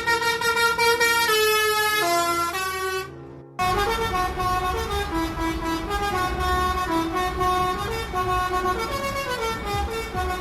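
Musical truck horns playing tunes in stepped notes. The first tune cuts off about three seconds in, and after a short gap another horn plays a longer tune over a low rumble.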